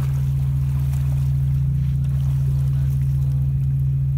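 A research ship's machinery running with a steady low hum.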